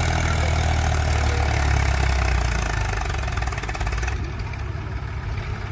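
Case 851EX backhoe loader's diesel engine running steadily with a low rumble, easing off slightly about four seconds in.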